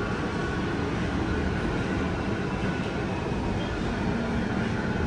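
Running noise inside a Busan Transportation Corporation 1000-series subway car with Toshiba permanent-magnet synchronous motor (PMSM) drive: a steady rumble of wheels on rail, heaviest in the low end, with a faint steady whine on top.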